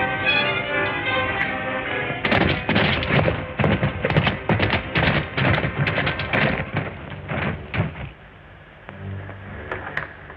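Orchestral music briefly, then a group of horses galloping, a quick irregular clatter of hoofbeats lasting several seconds that breaks off sharply.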